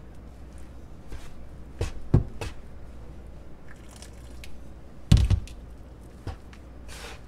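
Metal bench scraper chopping and scraping through flour, lard and hot water on a countertop as the tortilla dough is mixed, with a few sharp knocks of the blade on the counter. The loudest knock comes about five seconds in.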